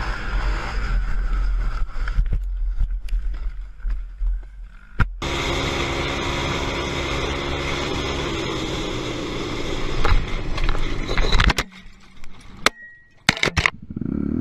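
Quad-bike engines running over rumbling wind and off-road noise, the sound changing abruptly several times. A couple of sharp knocks come about two-thirds of the way through.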